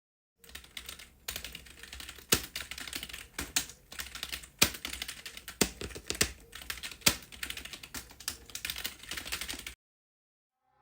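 Typing on a computer keyboard: a run of irregular keystroke clicks that starts about half a second in and stops shortly before the end.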